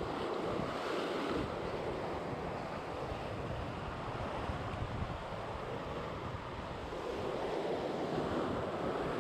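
Sea surf washing steadily, with wind buffeting the microphone in a low rumble.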